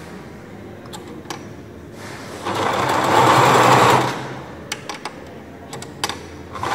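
Willpex WP653 household sewing machine running briefly, stitching for about a second and a half, then starting again near the end. A few light clicks come before and between the runs.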